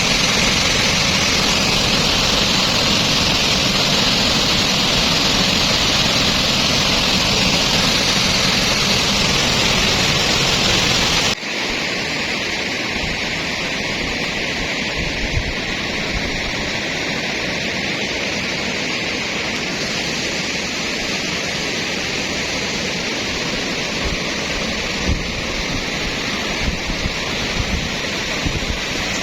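Floodwater rushing after heavy rain: a loud, steady rush of fast-flowing water. About eleven seconds in it cuts abruptly to a slightly quieter, lower rush, with a few brief low bumps near the end.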